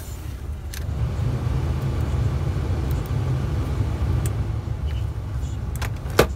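Cabin ventilation blower running with the engine idling under it, growing louder about a second in as the fan is turned up. A few sharp plastic clicks of the heater control sliders being moved, the loudest near the end.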